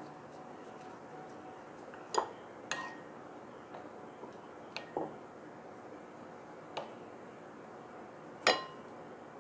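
A metal spoon clinking against a bowl while a croquette is turned in beaten egg: about six sharp clinks spread out, a few with a short ring, the loudest near the end.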